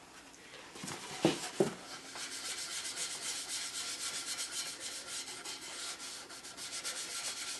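A cloth rubbing a waxy oil finish into a wooden frame with rapid back-and-forth strokes, working it into the pores against the grain. A couple of light knocks come first, about a second in.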